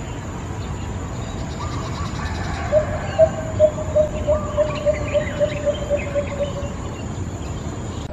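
Lesser coucal calling: a run of short notes at one pitch that quickens like a bouncing ball and fades away over about four seconds. Fainter, higher chirps and a steady background hiss sound alongside it.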